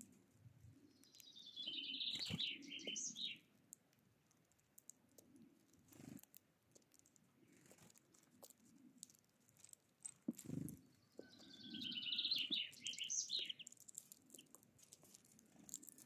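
A songbird singing two short phrases, each about two seconds of quick notes that step down in pitch and end on a flourish. The first starts about a second in and the second about eleven seconds in. Between them come faint taps and clicks of small birds feeding at a seed tray.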